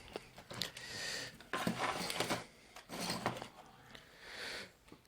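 Light clicks and short scraping noises of small tools being handled on a workbench, coming and going in several brief bursts.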